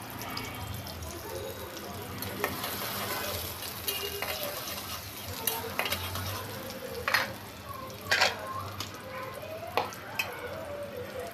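Chopped onion sizzling in hot oil in a steel karai, stirred with a spatula that scrapes and clicks against the pan several times.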